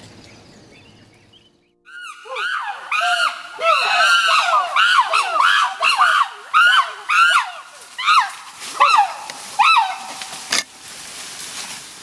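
Chimpanzees calling in chorus: many overlapping high screams that rise and fall in pitch, starting suddenly about two seconds in. Later the chorus thins to single calls about half a second apart.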